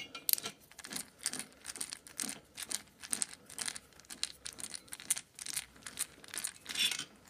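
11 mm socket driver turning a cylinder-head nut on a Vespa PX engine, making irregular sharp metal clicks and small scrapes, a few per second, as the nut is worked loose.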